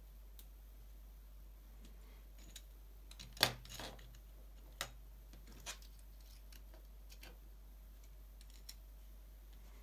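Small LEGO brick cars being set down and moved on a tabletop: a few light plastic clicks and taps. The loudest comes about three and a half seconds in, with a short scuffling rattle after it, and fainter taps follow every second or so.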